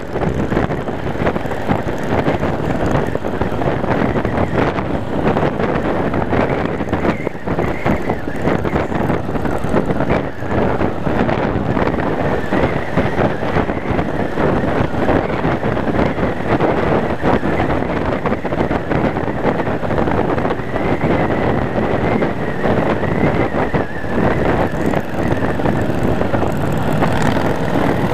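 Yamaha Wild Star cruiser's V-twin engine running steadily at road speed, mixed with wind rushing over the microphone.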